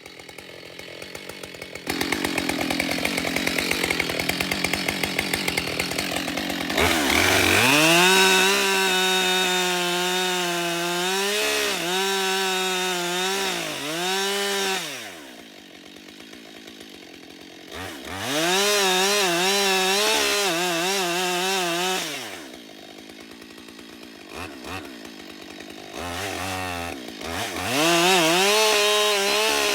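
Husqvarna 572 XP two-stroke chainsaw with a 24-inch bar cutting the face cut into a tree. There are three loud full-throttle cutting spells, the engine pitch sagging and recovering under load, with spells of idling between them.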